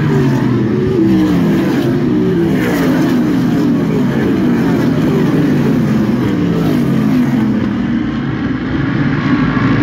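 Several winged sprint car engines racing around the oval together. Their pitches rise and fall over one another as the cars pass and come on and off the throttle, easing a little near the end.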